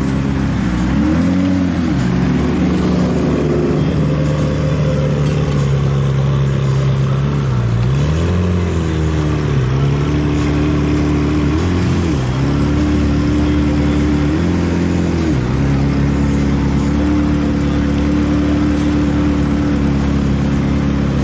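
Car engine idling steadily and revved briefly four times, the pitch rising and dropping back each time.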